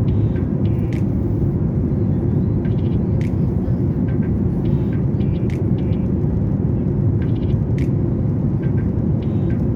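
Cabin noise inside a Boeing 737-800 airliner: a steady, even low rumble of engines and airflow, with faint scattered clicks and brief chirps over it.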